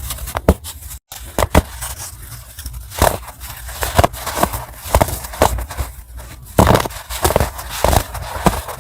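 Dry chunks of compressed baking soda being snapped and crushed: a run of sharp, irregular crunches and crackles, with a brief gap about a second in.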